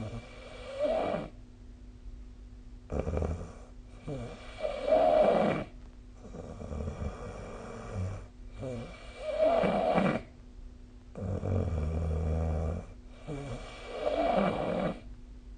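A sleeping person snoring, one loud, rough snore with each breath about every four to five seconds, with a lower rumble between the peaks.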